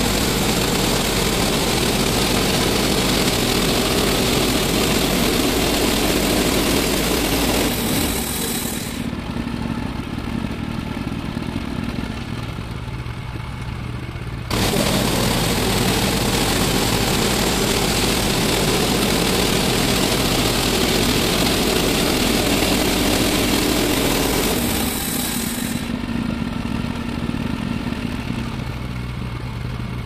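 Woodland Mills HM130MAX portable bandsaw mill's engine running, loud during two long passes of the blade through a black locust log. It drops to quieter running about a third of the way in, comes back loud suddenly around halfway, and drops again near the end.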